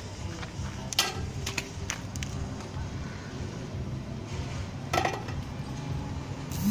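Radio-controlled toy excavator working in dirt: its small electric motors hum steadily as the boom and upper body move, with a few sharp clinks, the loudest about a second in and about five seconds in.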